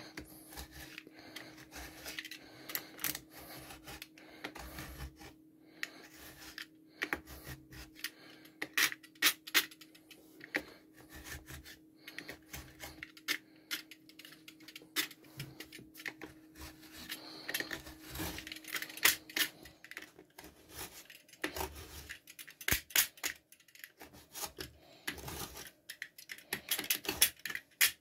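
Irregular snips, clicks and scrapes of a small blade cutting yarn strands along the edge of a hardboard disc on a workbench. A faint steady hum runs underneath and stops about twenty seconds in.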